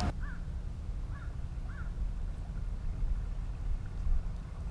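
Low, steady rumble of a boat's engines running at low speed, with a bird calling three short times in the first two seconds.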